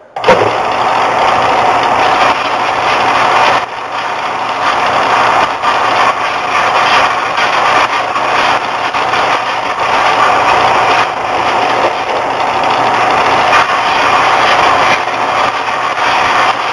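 Bench combination belt-and-disc sander coming on suddenly and running steadily, a constant whine over a grinding hiss, as the wooden bow tip is shaped against it.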